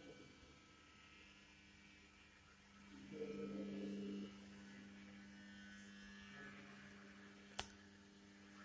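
Faint, steady electrical hum, a low tone with overtones. About three seconds in a louder muffled sound rises for about a second, and a single sharp click comes near the end.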